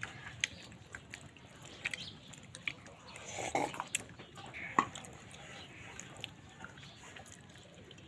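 Close-up eating sounds: a person chewing and smacking, with scattered wet clicks, a busier stretch about three and a half seconds in and a sharp click near five seconds.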